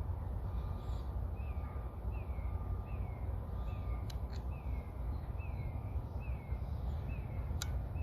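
Wind buffeting the microphone in a steady low rumble, with a bird calling over it in a series of short falling notes about once a second. Two sharp clicks, one midway and one near the end.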